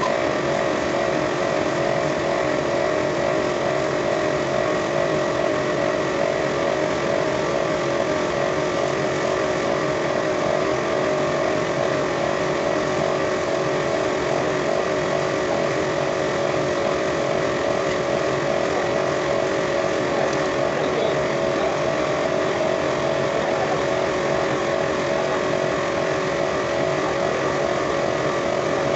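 A machine running with a constant, unchanging drone and a steady hum.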